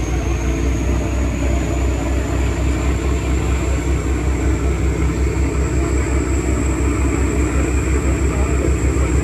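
Motorboat engine running steadily under way: a pulsing low drone with a thin high whine that rises slowly.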